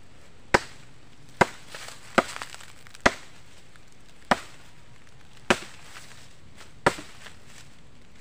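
A machete hacking at woody stems: seven sharp chops, roughly one a second, slightly irregular.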